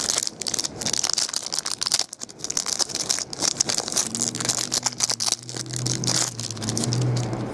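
Foil pack of 2011 Absolute Football trading cards being torn open and the cards pulled out and handled: a run of crinkling, rustling and crackling. A low steady hum comes in about four seconds in.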